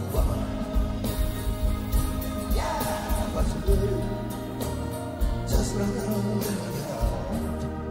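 Live rock band with guitars, bass and drums playing an instrumental stretch of a song, heard on an audience recording made in the hall.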